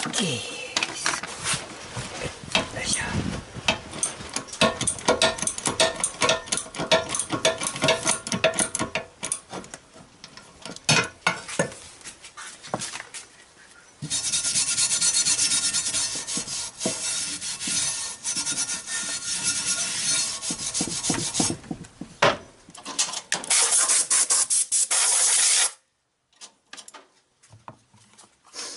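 Hand-held abrasive stone scrubbed over the rusty table of a bench drill press to take off the rust: rapid back-and-forth scraping strokes, running continuously for several seconds around the middle, then stopping with a few clicks near the end.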